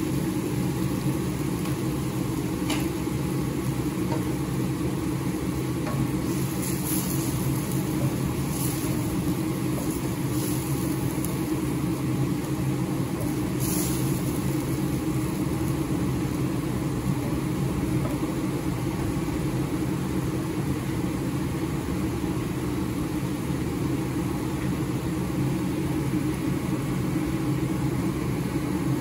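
Steady low rumble and bubbling of chicken pieces boiling hard in water in a stainless steel pan on a gas burner. A few faint light ticks come in the first half.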